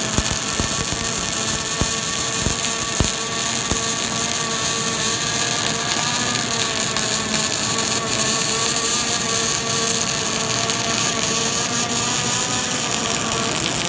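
Robotic arc welding: a steady, loud hiss of the welding arc with a constant machine hum of even tones under it, and a few sharp clicks about two to three seconds in.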